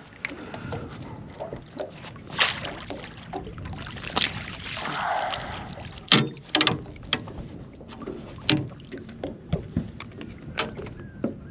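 A squid being netted over the side of a small boat: water splashing and sloshing, with a scatter of sharp knocks and clicks as the landing net and rod are handled.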